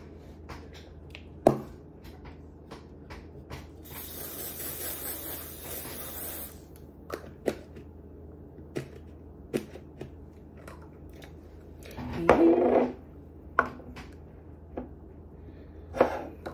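A shaker container being opened, tapped and shaken over a metal baking pan: a string of sharp clicks and taps, with a hiss of fine grains sprinkling out from about four to six and a half seconds in. A louder, brief noise comes about twelve seconds in.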